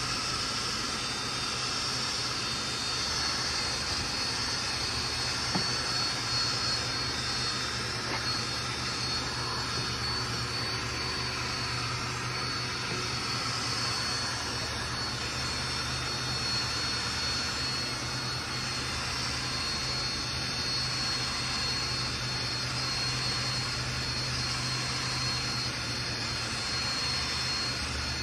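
DeWalt cordless drill running steadily with a high motor whine, spinning a foam buffing pad loaded with rubbing compound against a faded plastic headlight lens.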